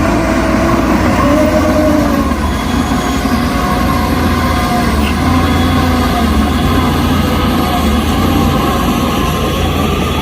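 Heavy earthmoving machinery running: a steady deep diesel rumble with a wavering whine and squeal above it.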